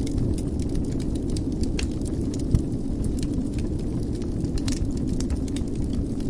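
Wood fire in a fireplace burning with a steady low rumble, crackling irregularly, with one louder pop about two and a half seconds in.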